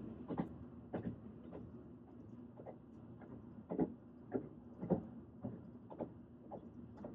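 Train running: a steady low hum with irregular knocks and creaks from the carriage, the loudest knocks about four and five seconds in.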